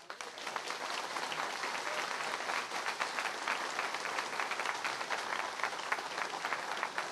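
Audience applauding: dense clapping from many hands that starts suddenly and keeps on steadily.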